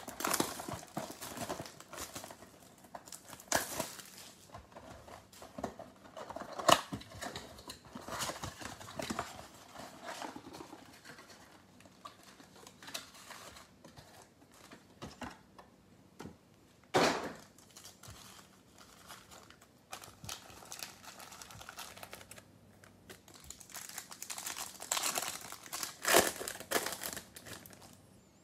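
Plastic shrink wrap crinkling and tearing as a trading-card box is unwrapped, then the cardboard box and foil card packs rustling as they are handled. Irregular crackles run throughout, and a few sharper ones stand out.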